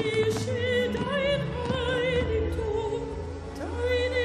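Female operatic voice singing with a wide vibrato, holding and gliding between notes over sustained instrumental backing.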